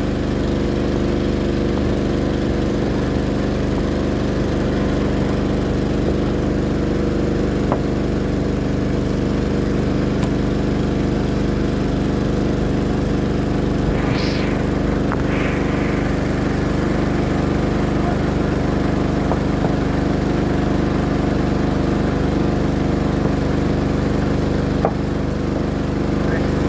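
A small engine running steadily at constant speed, an even hum that neither rises nor falls, with two short higher-pitched swells about halfway through.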